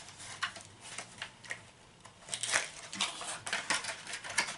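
Irregular clicks, taps and rustles of a small product package being handled and opened by hand.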